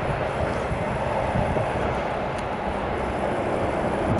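Freight train of container wagons rolling past, a steady rumble of wheels on the rails.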